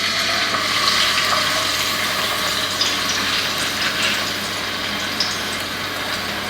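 Grouper fillet sizzling in hot olive oil in a frying pan, just after being laid in: a steady hiss with a few small crackles.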